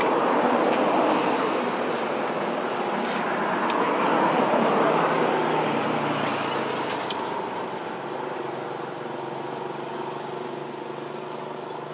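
A motor vehicle passing, its steady engine and road noise loudest in the first half and then slowly fading away.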